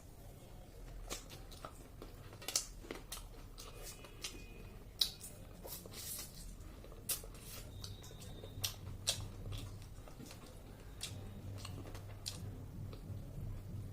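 A person chewing and biting food close to the microphone, with many short sharp clicks and crunches scattered irregularly through the chewing.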